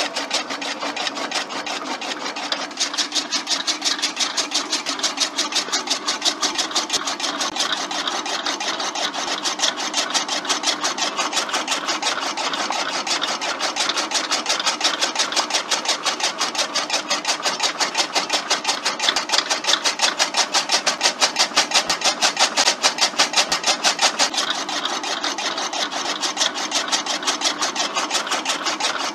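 Small electric motor driving a homemade miniature chaff cutter by belt and flywheel, running steadily with a rapid, even clatter as its blade chops green stalks. It grows a little louder for a few seconds past the middle.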